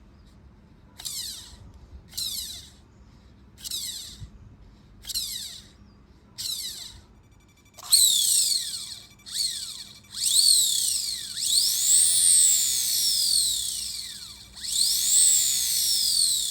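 Small electric motor, the Kawasaki ZX-12R's radiator fan motor, spun in about six short pulses; each is a brief whine that falls in pitch as it coasts down. From about eight seconds in it runs longer, its whine rising and falling as it speeds up and slows, while it is checked for an abnormal noise.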